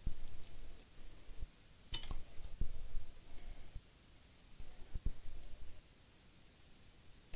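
Scattered small clicks and taps, a second or more apart, from handling an iPhone and small repair tools as its battery is swapped.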